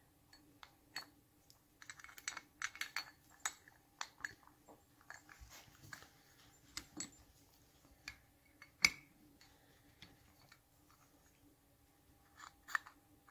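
Light, irregular clicks and clinks of small metal parts being handled and fitted: rocker arms, thrust washers and spindle going into a Triumph 650 rocker box. One sharper click comes about nine seconds in.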